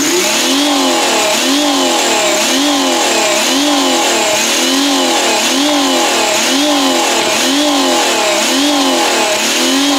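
Holden VY Ecotec 3.8-litre V6 revving up and dropping back about once a second, over and over, as it bounces against a rev limit set by the fake eBay Bee R spark-cut limiter: a slow, coarse cut rather than a rapid crackle.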